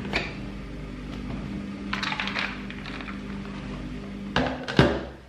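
Plastic NutriBullet blender cup being handled as its blade lid is screwed on: a few light plastic clicks and rattles over a steady low hum, then two knocks near the end as the cup is turned over and set down.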